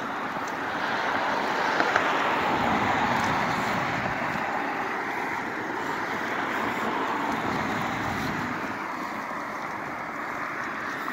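Road traffic noise: a steady hiss of tyres from passing cars, swelling over the first few seconds and then easing off.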